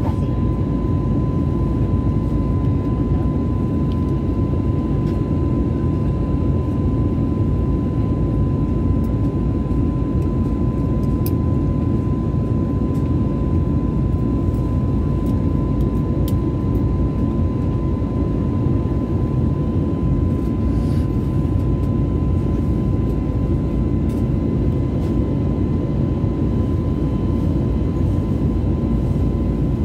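Steady airliner cabin noise in flight: the low, even rumble of the engines and airflow heard from a window seat, with a thin steady high tone running through it.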